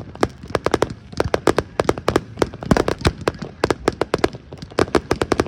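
Fireworks going off in quick, irregular succession: many sharp bangs and crackling pops, several a second.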